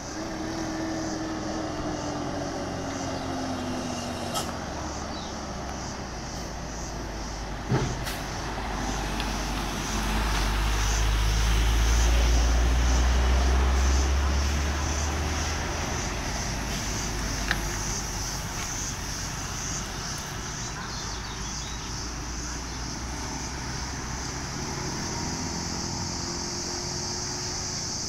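Traffic on a steep hairpin bend: heavy diesel trucks, a Hino among them, with motorbikes and cars passing close. A deep truck-engine rumble swells to its loudest about ten to fifteen seconds in and then fades, and an engine note falls in pitch in the first few seconds.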